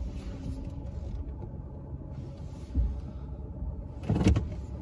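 Truck engine running at low speed with a steady low rumble, heard from inside the cab as the truck eases into a parking spot. A brief louder noise cuts in near the end.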